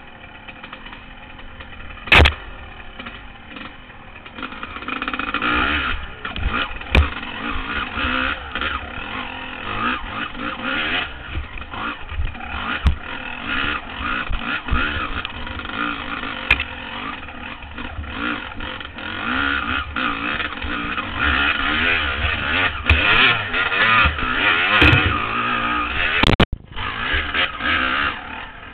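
Honda CR250 two-stroke dirt bike engine revving up and down as it is ridden slowly over rough trail, heard from a helmet camera. A few sharp knocks break in, from bumps jolting the bike and camera.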